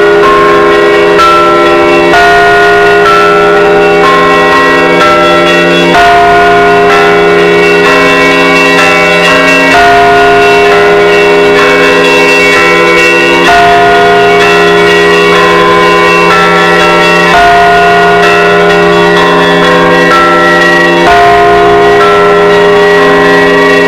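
Russian Orthodox church bells rung loudly together in a festive Easter peal (trezvon): small bells struck quickly over several middle bells, with the heavy bell tolling about every four seconds.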